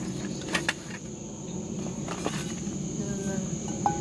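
Steady high-pitched insect chorus, cricket-like, throughout. A couple of light clinks about half a second in and a brief metallic ring near the end, as a set of stainless camping pans is handled.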